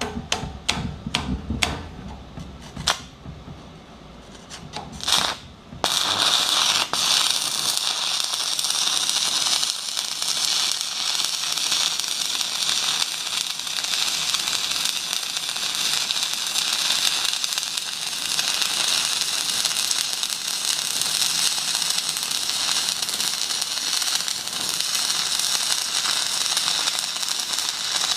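Stick-welding arc from a 3.2 mm 6012 electrode at 150 amps. A few sharp clicks and a short sputter come first as the arc is struck. From about six seconds in there is a steady crackling sizzle as the rod burns. The welder reckons 150 amps is pretty high for a 3.2 mm rod.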